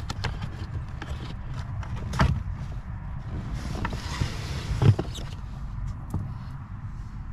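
Tesla Model 3 cabin air filter being pulled out of its plastic housing slot: plastic clicks and knocks, then a hissy scrape about four seconds in as the filter slides free, ending in a sharp knock just before five seconds.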